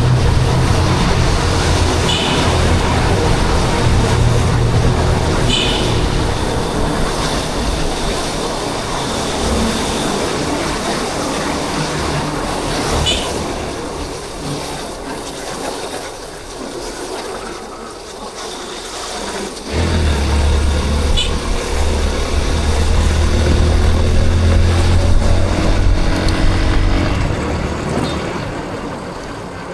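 Yamaha Crosser 150 motorcycle engine running under way, with road and wind noise. It eases off and goes quieter for several seconds past the middle, then comes back abruptly about twenty seconds in and fades again near the end.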